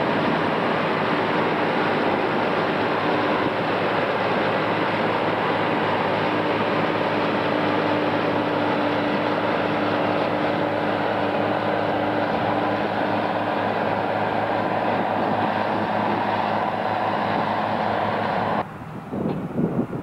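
Two Lamborghini tractors, a Formula 115 and a Racing 165, running steadily under load as they pull a seven-furrow plough through the soil. A little before the end the sound cuts abruptly to a quieter, uneven rumble.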